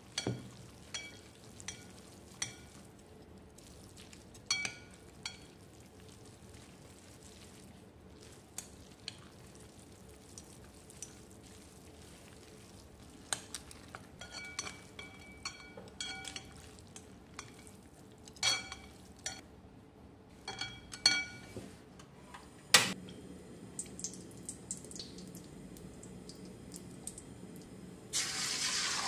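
Stir-frying in a wok: a metal utensil clinks and taps against the pan with a ringing note, over a faint sizzle. About a second before the end, a tap starts running.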